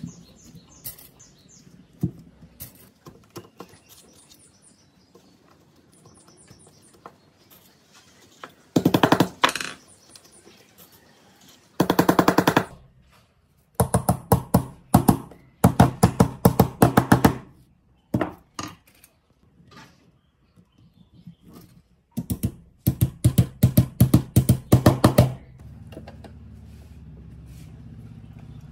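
Hammer tapping steel transformer laminations into the coil bobbin, in several bursts of rapid, sharp metal-on-metal blows. Lighter clinks of the loose steel sheets come before, and a low steady rumble takes over near the end.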